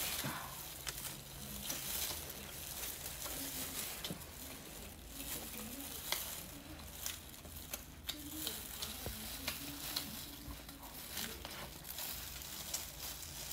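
Close-up eating sounds of a chili-coated brown crab being bitten and sucked: a wet crackle with scattered small clicks.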